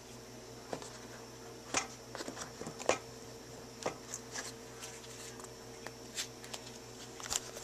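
Scattered light taps and rustles of hands handling an iPhone 4 and its cardboard box as the phone is lifted out of the box tray, over a faint steady hum.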